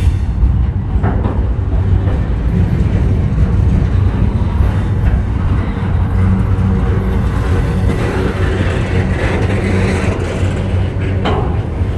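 Double-stack intermodal train of container well cars rolling past close by: a steady rumble of steel wheels on the rails, with a faint clank about a second in and another near the end.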